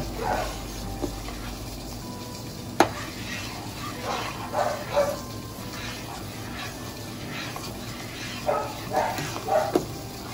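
Spoon stirring a thick poblano cream sauce in a pot over high heat, with a sharp knock of the spoon against the pot about three seconds in. Clusters of short dog barks break in near the start, in the middle and near the end.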